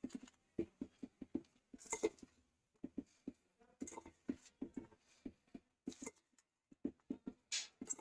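A spoon mixing chopped tomato, onion and cabbage with spices in a bowl: a quick, irregular run of soft clicks and wet taps, with sharper clinks about two seconds in and near the end.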